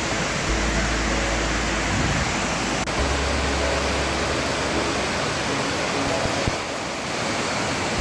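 Waterfall rushing down rock cascades: a steady, even rush of falling water.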